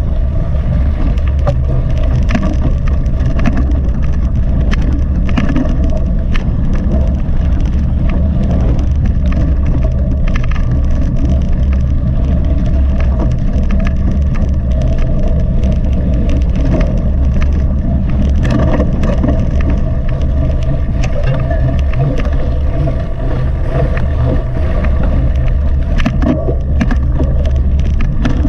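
Mountain bike ridden hard over rough ground: steady low wind rumble on the microphone, with constant clicking and clatter from the tyres and frame.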